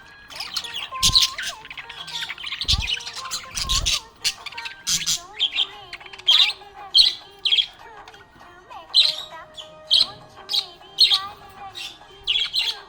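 Budgerigar chirping in quick, sharp calls, repeated irregularly throughout, with a few dull thumps in the first few seconds.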